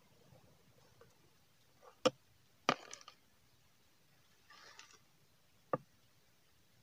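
Handling noises from a clear plastic tub being tipped out over dry leaf litter: three sharp knocks with a short scrape after the second, and a soft rustle between them.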